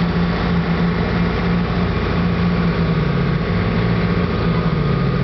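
Waterbus passenger boat's engine running steadily: a continuous low drone.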